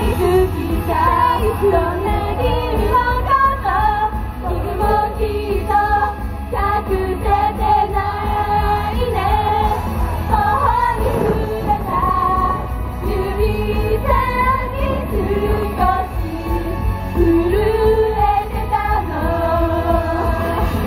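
Girls' idol group singing pop into microphones over an amplified backing track with a steady bass line.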